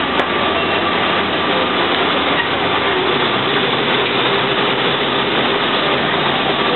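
City bus under way, heard from inside the passenger cabin: steady engine and road noise. A brief click sounds just after the start.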